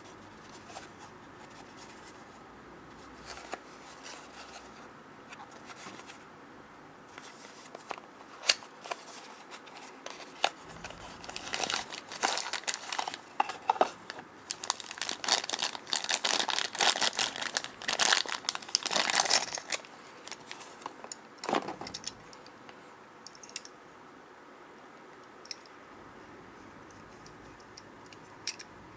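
Crinkling, crackling and tearing, as of paper or plastic being handled, with scattered clicks. It is busiest and loudest in the middle stretch and dies away a little after the middle.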